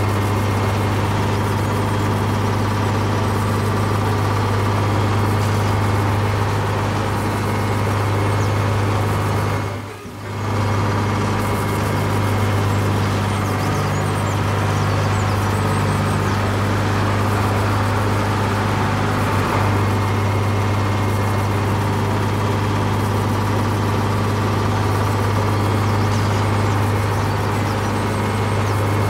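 Tractor engine sound effect running with a low, steady drone, cutting out briefly about ten seconds in.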